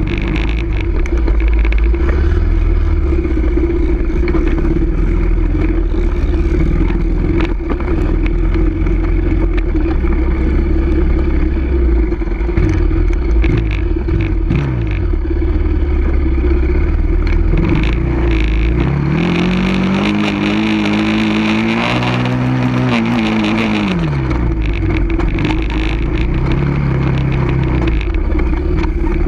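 Off-road vehicle engine running continuously under throttle, with wind rumbling on the microphone. About two-thirds of the way through, the engine note climbs and then falls back over roughly five seconds.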